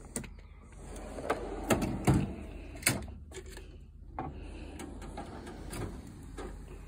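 Metal tool box drawers sliding shut and open, with a string of clicks and knocks; the loudest is a sliding rumble ending in a clunk about two seconds in.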